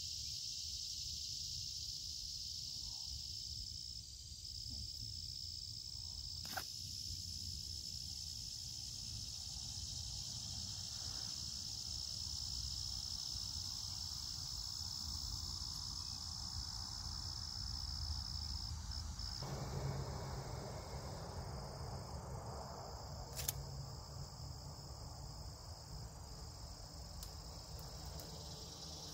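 Steady, high-pitched chorus of insects, over a low background rumble. Two sharp clicks stand out, one about a quarter of the way in and one about three quarters in.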